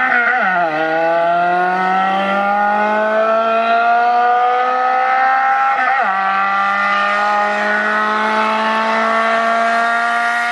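Car engine accelerating hard through the gears. Its note rises steadily and drops sharply at an upshift about half a second in and again about six seconds in.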